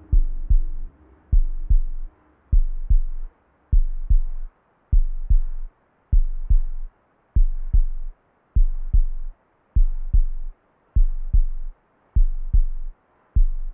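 Heartbeat sound effect: slow, steady paired low thumps (lub-dub), about one beat every 1.2 seconds.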